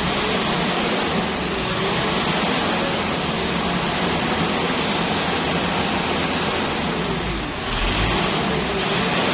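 Steady hiss of water spraying onto a vehicle during washing, with a low hum underneath.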